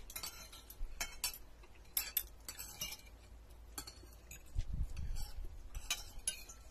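Spoons and forks clinking and scraping on ceramic plates during a meal: scattered light clinks at irregular intervals.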